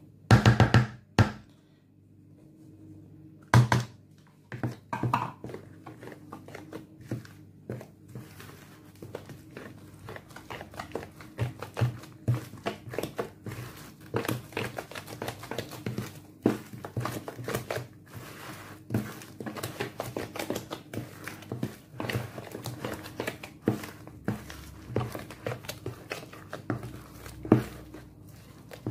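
A spoon stirring a thick grated-potato batter in a plastic bowl: irregular scraping, squelching and knocks against the bowl's side, the loudest knocks in the first second.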